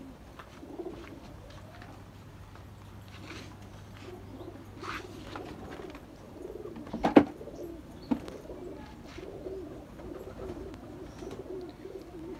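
A flock of domestic pigeons cooing continuously, many birds overlapping in a steady warbling murmur. A sharp knock sounds a little past the middle, with a smaller one about a second later.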